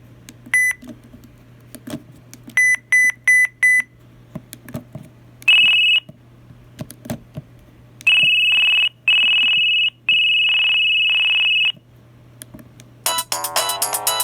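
LG enV (VX9900) cell phone beeping: a single short high beep, a run of four quick beeps, then longer steady tones of about a second each, with faint clicks in between. A ringtone melody with many notes starts about a second before the end.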